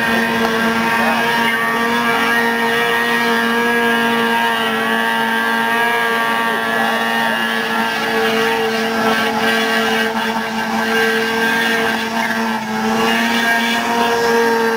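Snowmobile engine running at a steady pitch as the sled skips across open water, with a brief dip in loudness a couple of seconds before the end.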